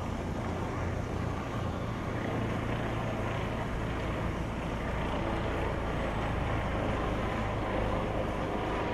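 Steady low rumble of a river tour boat's engine under way, with a continuous outdoor noise haze over it.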